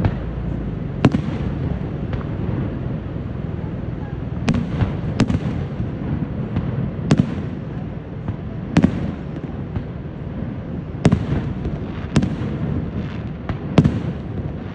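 Aerial firework shells bursting: about eight sharp bangs at irregular gaps, each trailing off in a short echo, over a steady low rumble.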